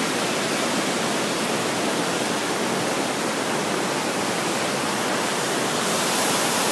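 Fast mountain river rushing over rocks: a steady, full rush of whitewater that turns a little hissier near the end.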